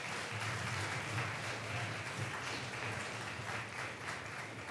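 Audience applauding, a dense patter of many hands clapping that eases off slightly near the end.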